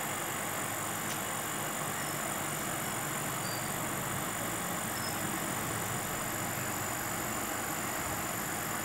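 Steady, unchanging machine running noise with a faint high whine.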